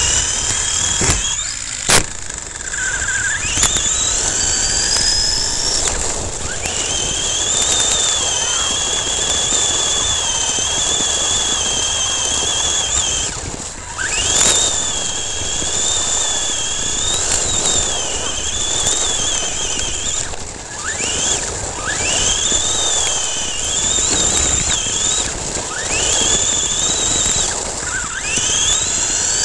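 Ansmann SC4 radio-control short-course truck's electric motor whining, its pitch rising and falling again and again as the throttle is worked, over the rush of tyres on gravel. A couple of sharp knocks come about two seconds in and about midway.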